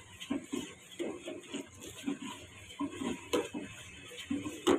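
Metal spoon stirring milk in a metal saucepan, scraping and clinking against the pan's side and bottom in irregular strokes, two or three a second, with a sharper knock about three and a half seconds in and another near the end.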